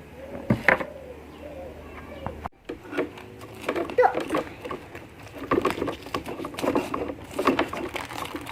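A dove cooing a few soft, rounded notes in the first second or two, followed by kitchen clatter of clicks and knocks and background voices.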